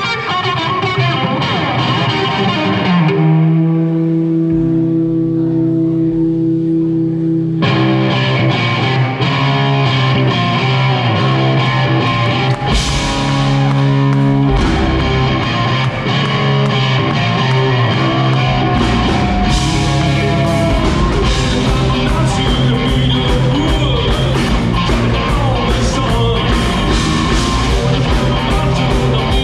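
Live rock band playing an instrumental passage: distorted electric guitars over bass and drums. A few seconds in, the band thins to long held guitar notes, then crashes back in at full volume.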